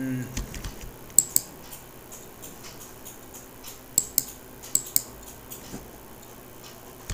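Clicks of a computer mouse and keyboard, sharp and short, coming in quick pairs: one pair about a second in, another around four seconds and a third around five seconds.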